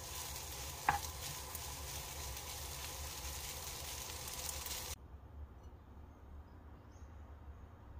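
Fried rice sizzling in a hot oiled pan as a wooden spatula stirs it, with one brief sharp click about a second in. The sizzling cuts off suddenly about five seconds in, leaving only a faint sound.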